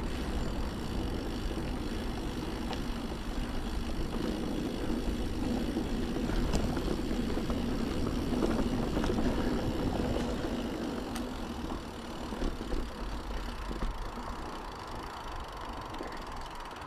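Mountain bike riding over a trail: steady rolling rumble from the tyres and bike, with a few sharp clicks and rattles, easing off somewhat about two-thirds of the way through.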